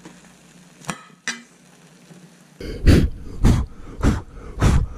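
A faint steady hiss with two clinks of cutlery on a plate. About two and a half seconds in come footsteps on snowy ground at a walking pace, roughly one every 0.6 s, and they are the loudest sound.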